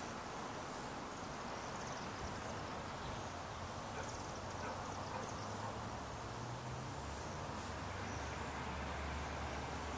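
Outdoor evening ambience: a steady wash of distant background noise with faint, high-pitched insect chirping here and there. A low hum comes in about halfway through and grows stronger near the end.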